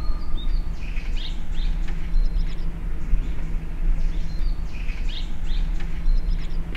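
Birds chirping and calling in short repeated phrases over a steady low rumble and hum.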